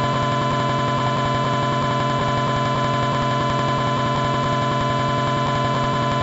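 Experimental noise drone: a dense, steady cluster of many held tones with a rapid flutter in the bass, unchanging throughout.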